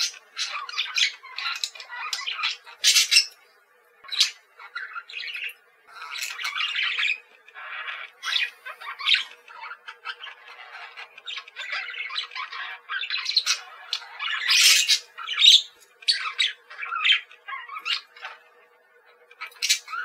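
Parakeets calling: many short, high calls in quick, uneven succession, with a brief pause about four seconds in.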